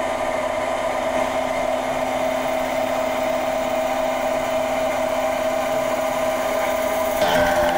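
CNC machine cutting acrylic: a steady machining whine from the spindle and cutter, shifting slightly near the end.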